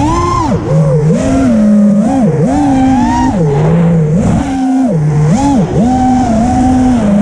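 FPV racing quadcopter's motors and propellers whining, the pitch climbing and dropping every half second to a second as the throttle is punched and eased through the turns.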